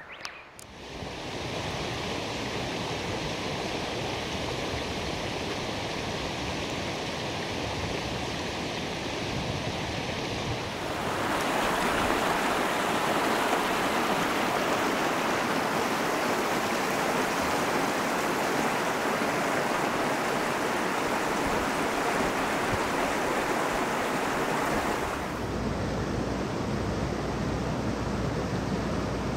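Mountain stream rushing over rocks, a steady wash of water noise that jumps abruptly in level and tone about a second in, again around eleven seconds, and changes once more near the end.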